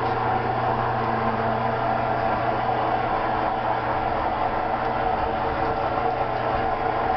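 Drive motor of a retractable observatory roof running steadily as the roof travels along its track: a constant mechanical hum with several steady tones under a noisy haze.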